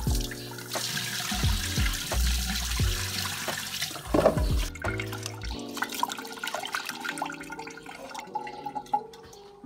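Tap water running from a faucet into a metal pot while rice is rinsed in it by hand; the water stops about five seconds in. Background music with a steady bass line plays throughout.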